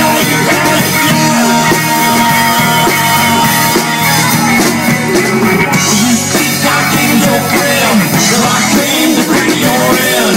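Rock music with drums in a wordless instrumental passage. Held notes give way, about four seconds in, to a lead line that bends up and down in pitch.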